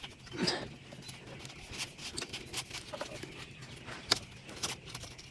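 Faint scattered clicks and light knocks of hand work on a dirt bike's engine, with one sharper click about four seconds in.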